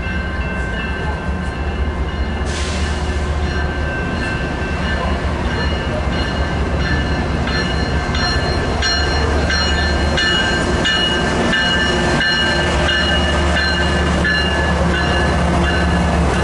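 A train rolling by: a steady low rumble with several high, steady squealing tones over it and scattered clicks, growing a little louder toward the end.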